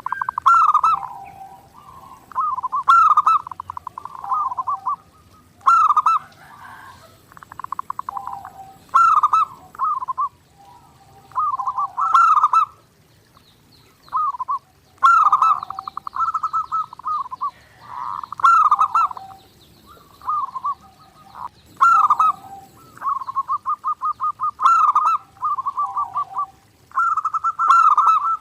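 Zebra dove (perkutut) singing nonstop: repeated cooing phrases, each a rapid trill running into a few clear coos, one every two to three seconds.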